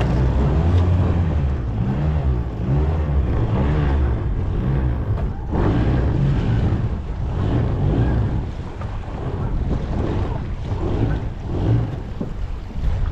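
Boat motor running steadily with some wavering in pitch, with wind buffeting the microphone.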